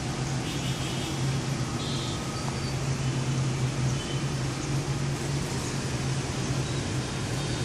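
Steady background hiss with a continuous low machine hum, and a few faint high chirps in the first two seconds.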